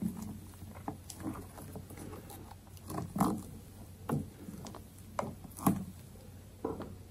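Silicone spatula folding airy meringue into soufflé pancake batter in a glass bowl: irregular soft, wet squelches and scrapes, a few of them louder, roughly every half second to second.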